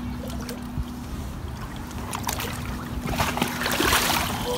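Water splashing and sloshing as a person climbs into an inflatable float tube in shallow water and kicks her feet, loudest about three to four seconds in.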